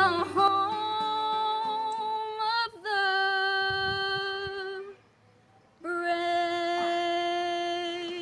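A woman singing unaccompanied, holding three long steady notes, with a short pause for breath about five seconds in.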